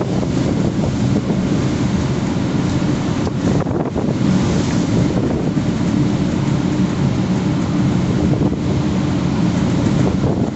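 Gale-force storm wind blasting the microphone in a steady, loud, rumbling roar.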